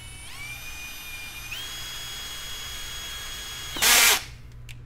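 Cordless drill with a 1/2-inch bit spinning up to a steady whine that steps higher in pitch about a second and a half in, then a loud burst of grinding near the end as the bit cuts through the plastic tailgate trim panel, and the motor stops.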